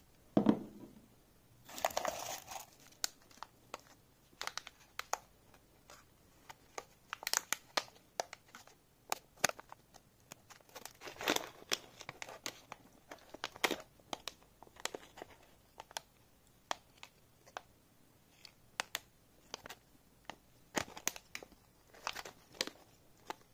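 Metallized anti-static bag crinkling and rustling as it is handled and opened, with many scattered small clicks and crackles. A single thump about half a second in is the loudest sound.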